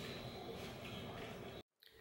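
Faint, even room noise with no distinct event, cut off abruptly by an edit near the end.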